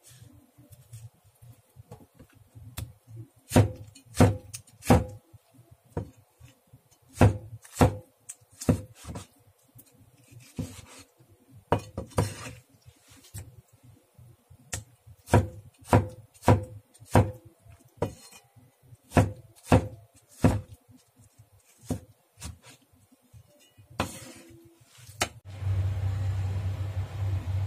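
Cleaver blade knocking on a bamboo cutting board while slicing tomatoes: irregular single chops, sometimes two or three in quick succession, with pauses between. Near the end the chopping stops and a steady low hum takes over.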